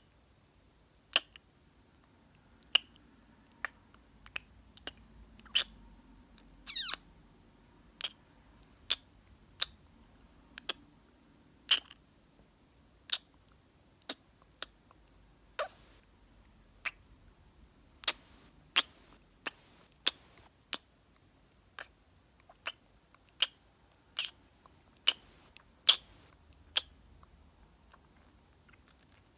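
Close-miked kisses and lip smacks: short wet pops about once a second, some in quick pairs, with one longer smack about seven seconds in.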